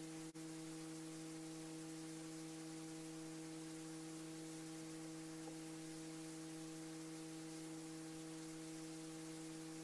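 Steady electrical hum on the helicopter's intercom audio: one low tone with several higher overtones, and the engine not running.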